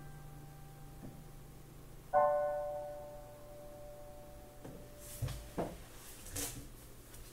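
Piano: a chord struck about two seconds in rings and slowly fades out, ending the playing. From about five seconds in, a few short knocks and bumps follow.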